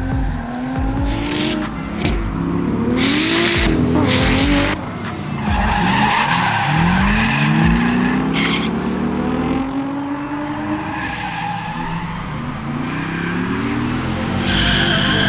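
Corvette V8 revving up and down in a drift, the engine note rising and falling repeatedly, with tyres squealing and skidding.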